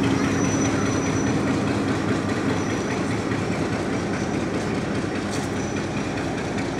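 Mehr Express passenger coaches rolling past close by as the train pulls out, a steady run of wheels on rail that slowly gets quieter.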